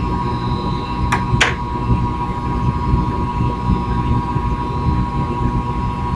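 Small electric model helicopter's motors and gears running with a steady whine over a low rumble. Two short sharp clicks about a second in.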